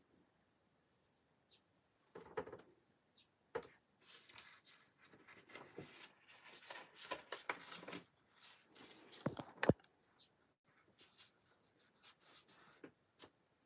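Things being handled and set down on a wooden desk: paper and sleeves rustling, with light knocks and clicks, the sharpest knock near ten seconds in.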